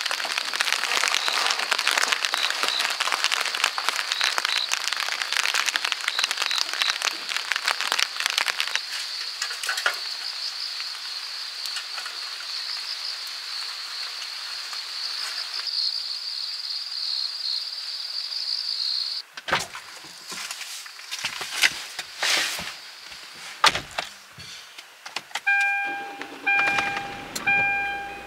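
Steady rain pattering on a wet wooden deck, a dense hiss of drops. It cuts off suddenly about two-thirds of the way through, followed by a few sharp knocks and thuds inside a car and, near the end, a car's electronic warning chime beeping repeatedly.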